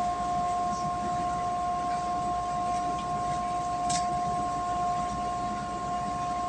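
A steady high whine holding two pitches, over a low background rumble, with one short click about four seconds in.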